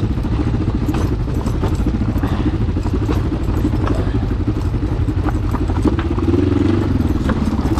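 Adventure motorcycle engine running on a wet, muddy trail, with scattered clatter and knocks from the bike over rough ground. The engine note wavers about six seconds in.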